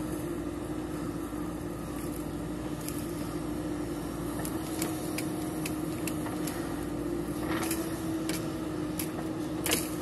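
JCB 3DX backhoe loader's diesel engine running steadily with an even hum as the backhoe digs, swings and unloads soil, with scattered knocks and clanks from the bucket and arm and one sharper knock near the end.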